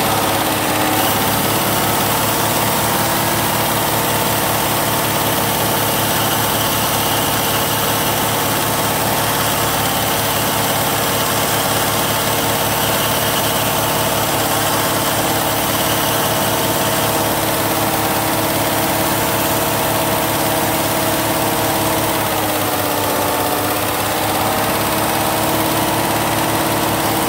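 2015 GMC Sierra's 5.3-litre direct-injection V8 held at a steady fast idle while it runs on injector-cleaner solution fed from a flush rig. Its speed sags briefly a little over twenty seconds in, then picks back up.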